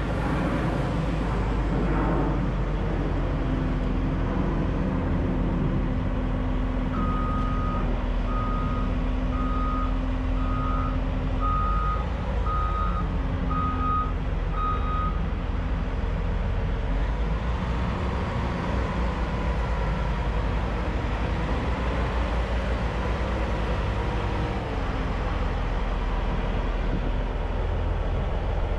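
CAT 988H wheel loader's C18 turbo diesel engine running steadily as the machine moves. Its reversing alarm beeps about once a second for several seconds in the middle.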